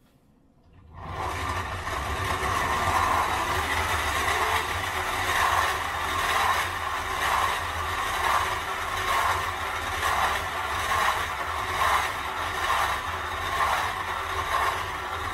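Blue 3D-printed plastic gear train of a hand-cranked generator prototype running as it is turned, its gears meshing with a steady whir. It starts about a second in and swells and eases about once a second.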